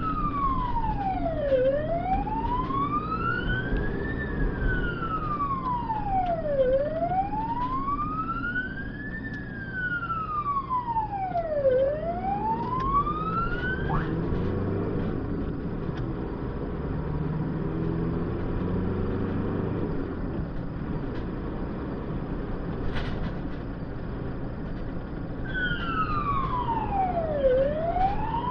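Ambulance siren on a slow wail, each sweep rising for about two and a half seconds and falling again, heard from inside the cab over engine and road noise. It cuts off about halfway through, leaving only engine and road noise, and comes back on a few seconds before the end.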